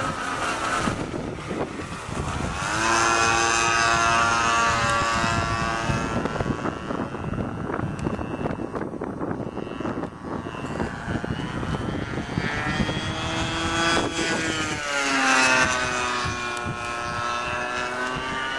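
Glow engine of a radio-controlled model airplane, an OS Max 120, running at high throttle in flight. Its pitched whine rises and falls as the plane passes by, loudest about three seconds in and again near the end, fainter in between.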